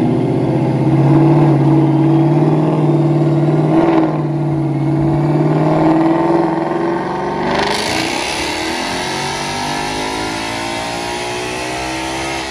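Ford Mustang GT's supercharged 5.0 V8 running through a newly fitted Corsa Extreme cat-back exhaust: a steady deep idle, with a short blip about four seconds in. From about seven and a half seconds a hiss joins and the engine note slowly shifts in pitch.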